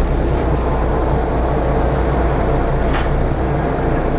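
Charter boat's engine running with a steady low drone, heard from inside the cabin while under way.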